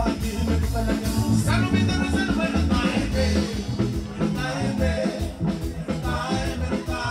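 Live band playing: a man sings into a microphone over a drum kit, keyboards and acoustic guitar, with strong bass notes underneath.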